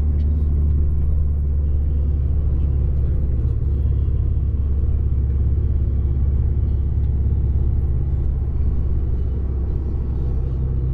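Steady low rumble of a moving bus's engine and road noise, heard from inside the cabin.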